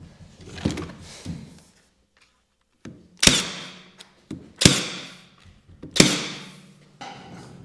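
Three hard knocks about a second and a half apart, each ringing briefly, after a couple of lighter knocks: blows on the bent sheet-metal side panel of the crate workbench, knocking it into place.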